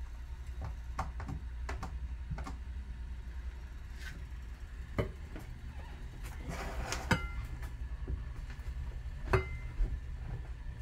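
Kitchen utensils and a dish knocking and clinking while food is prepared. There are scattered sharp knocks, a couple of them ringing briefly, and a short rushing stretch about two-thirds through, over a steady low hum.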